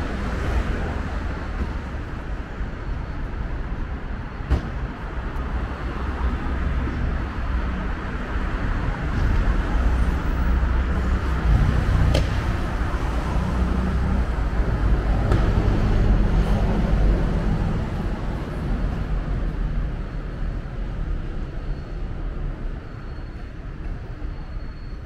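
City street traffic: a steady rumble of cars on the avenue, swelling as vehicles pass at about ten and sixteen seconds in.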